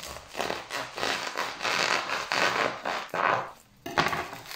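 A kitchen knife sawing through the bubble wrap on a parcel: a run of scratchy, rasping strokes. A short pause about three and a half seconds in is followed by a sharp crackle of the plastic wrap.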